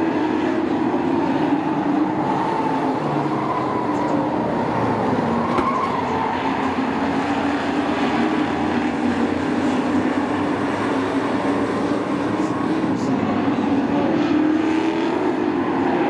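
Race truck engines running laps, their pitch rising and falling slowly as the trucks go around.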